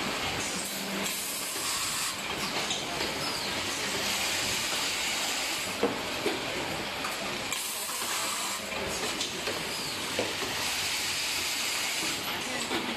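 Automatic caster assembly machine running: a steady hissing machine noise with a few sharp clicks, the loudest about six seconds in.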